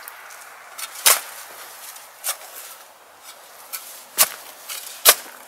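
Steel shovel blades chopping into clay soil around a tree's root ball: an uneven series of sharp chops, the loudest about a second in and near the end.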